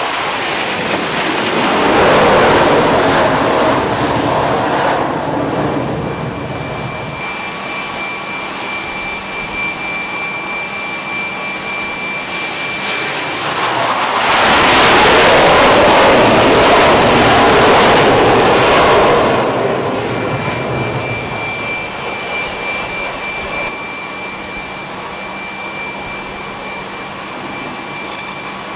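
Jet aircraft engines on a carrier flight deck: a steady high turbine whine under the rush of jet exhaust. The noise swells about two seconds in, then grows much louder and fuller for about five seconds around the middle before easing back.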